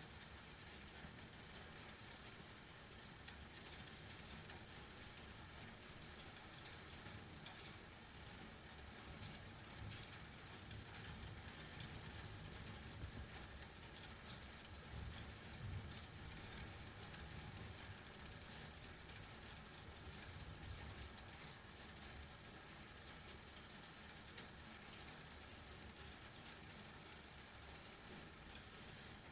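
Steady rain: an even hiss of falling rain with light pattering drips, over a low, uneven rumble.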